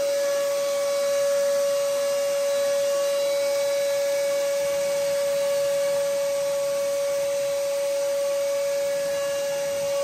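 Vacuum running steadily with a constant whine as it sucks trapped water out of a 90% condensing furnace's PVC flue pipe, which has filled with water because it does not drain properly.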